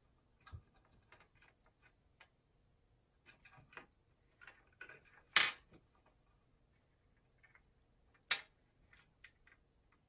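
Amazon parrots picking at a toy of plastic pieces on a glass tabletop: scattered light clicks and taps, with two sharper clacks, one about halfway through and one near the end.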